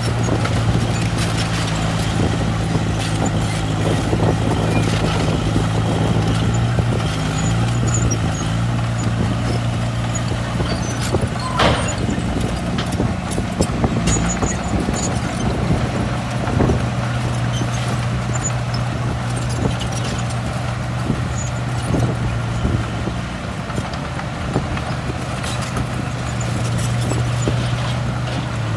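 Shantui crawler bulldozer working: its diesel engine runs steadily with a low hum, over a constant clatter of clanks and knocks from the tracks and the material being pushed. There is one brief sharp sound about twelve seconds in.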